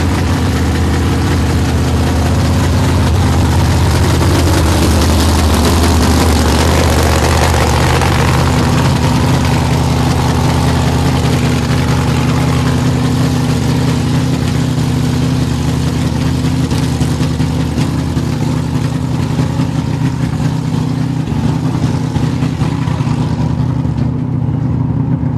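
Supercharged 540 big-block V8 with a 14/71 blower and methanol injection, in a Holden Commodore ute, idling loudly and steadily.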